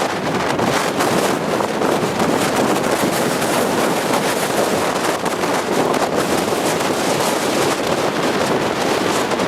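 Strong wind buffeting the microphone: a loud, steady rushing noise with no breaks.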